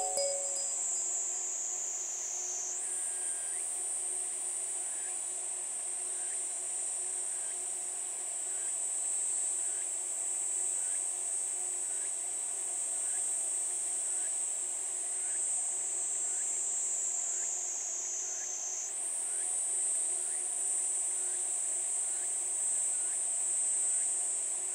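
Insects droning in a steady high-pitched chorus that jumps up in pitch twice, a few seconds in and again about three-quarters through, and slides slowly down between the jumps. Faint short chirps repeat under it.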